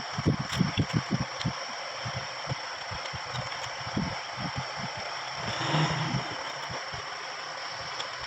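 Irregular low knocks and rattles of amplifier parts being handled and fastened into the cabinet, over a steady hiss with a faint high whistle.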